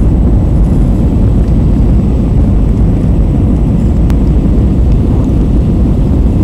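Steady, loud low rumble of a jet airliner's cabin noise, engines and airflow heard from a window seat, during the descent with flaps extended.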